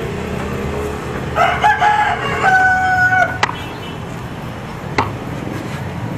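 A rooster crowing once, a crow of about two seconds that ends on a held note, over a steady low background rumble. Two sharp clicks follow.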